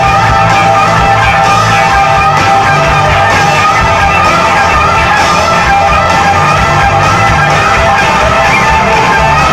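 Rock band playing live: electric guitars over drums, loud and steady, heard from within the audience.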